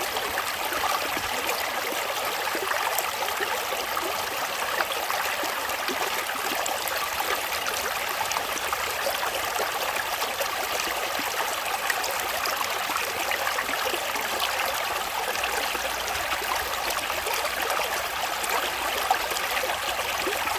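Mountain valley stream flowing over rocks, a steady rushing and splashing of water.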